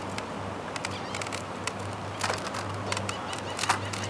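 Bicycle rolling along the boardwalk with a steady low hum and scattered light ticks and rattles. Birds give two short, sharp calls that fall in pitch, about two seconds in and near the end.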